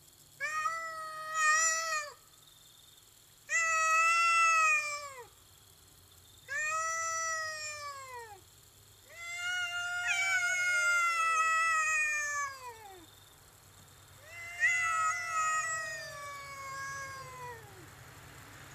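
Domestic cat yowling in a standoff with another cat: five long, drawn-out yowls, each rising and then sagging in pitch, the longest about four seconds.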